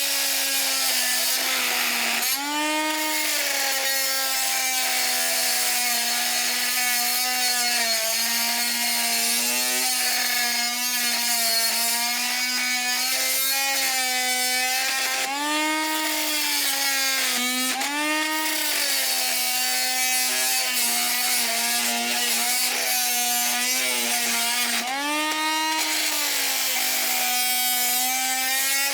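VEVOR oscillating multi-tool running under load, its blade cutting into thick steel plate: a steady buzzing whine over a grinding hiss. The pitch sags several times as the blade bogs down in the metal and picks back up as it frees, because the blade is not made for steel this thick.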